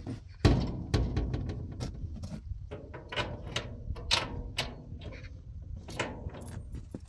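A door pulled shut with a loud knock about half a second in, then irregular clicks and rattles as its latch or lock is worked by hand.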